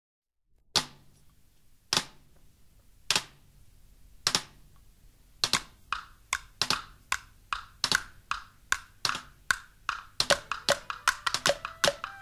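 Wood blocks struck alone in a slow knocking rhythm, about one strike a second at first. A second, higher-pitched block joins in and the strikes come closer together, several a second by the end. Pitched instrument notes start to come in near the end.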